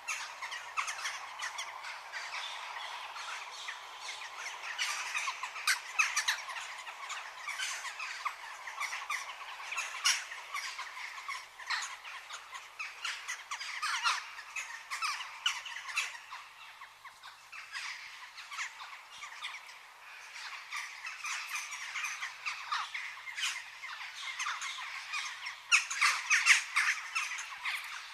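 A chorus of many birds chirping and calling at once, a dense stream of short overlapping calls and squawks that grows louder near the end.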